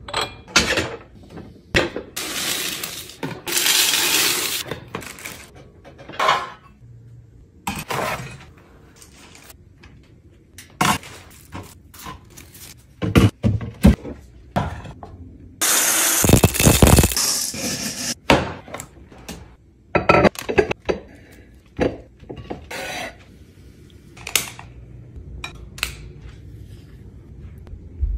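Glass jars, lids and dishware clinking and knocking as they are handled and set down on hard counters and shelves, in many separate strikes. Two longer noisy stretches of about two seconds come a few seconds in and near the middle.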